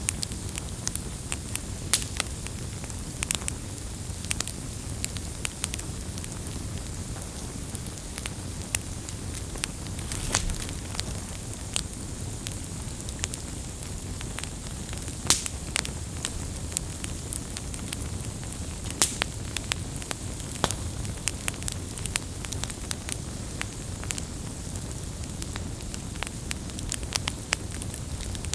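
Wood campfire burning: a steady low rumble of flames with irregular sharp crackles and pops from the burning wood, a few louder snaps scattered through.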